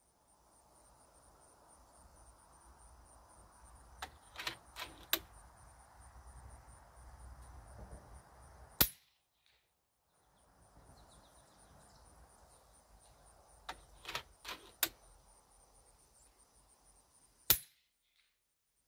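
Two shots from a .30-calibre SKOUT Epoch PCP air rifle, each a single sharp crack, about nine seconds apart; a few seconds before each shot comes a short cluster of quieter clicks. Insects trill in a steady pulsing rhythm in the background.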